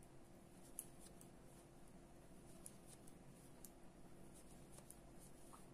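Near silence with faint, irregular clicks and ticks of metal knitting needles as garter stitch is knitted by hand, over a low steady hum.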